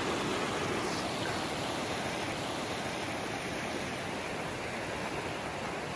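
Steady rush of stream water flowing fast over rocks and rapids.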